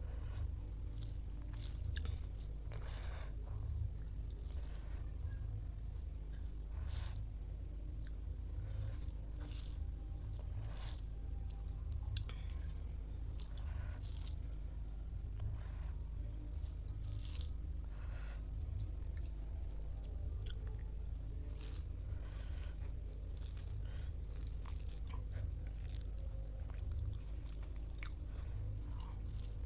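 A person chewing and biting food close to the microphone, with irregular crunches and mouth clicks over a steady low hum.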